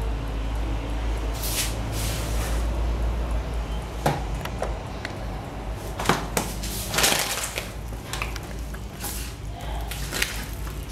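Wooden spoon scraping cake batter out of a mixing bowl into a round metal cake tin, with a few sharp knocks of the spoon against the tin and bowl among short scraping sounds, over a steady low hum.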